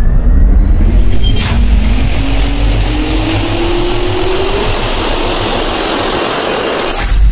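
Jet engine spooling up: a turbine whine climbing steadily in pitch over a loud rushing roar, with a sharp hit about a second and a half in and another just before the end.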